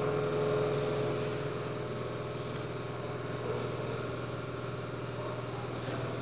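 A steady low mechanical hum. A faint higher tone fades out in the first couple of seconds.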